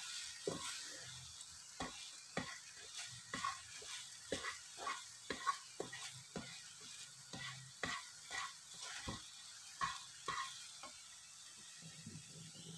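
Green plastic slotted spatula stirring and scraping thick bread halwa in a nonstick pan, in short strokes about twice a second that stop near the end, over a faint sizzle as the sugar-syrup water cooks off on low heat.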